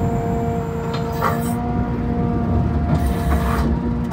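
Cummins diesel engine of a Ford F-750 bucket truck running with its hydraulics working the Altec outriggers down: a steady whine over the engine's rumble, with short hissing surges about a second in and again near three seconds.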